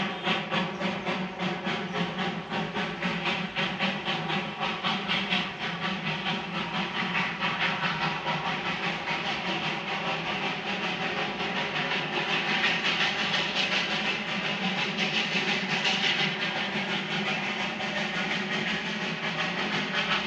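Darjeeling Himalayan Railway steam locomotive working, its exhaust chuffing in rapid, regular beats over a steady steam hiss. The beats blend into a brighter, more continuous hiss about two-thirds of the way through.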